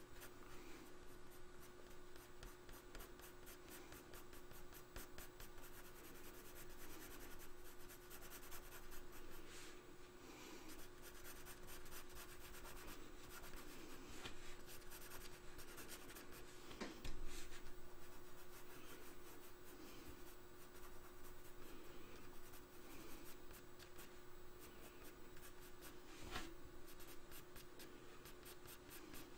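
Coloured pencil scratching lightly on drawing paper in strokes, laying down fur around a drawn dog's eyes, under a faint steady hum. A single sharp tap sounds about halfway through.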